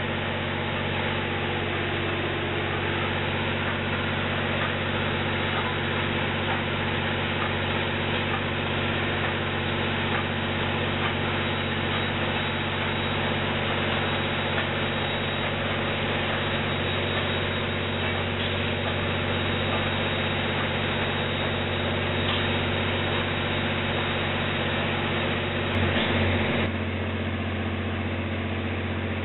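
Large diesel engine idling steadily, a low even drone, briefly a little louder near the end.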